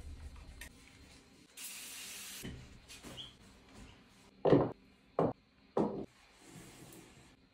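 A spray bottle of cleaner spritzed once, about two seconds in, followed by rubbing and three short, loud bumps as items are picked up and set back down on a bathroom counter.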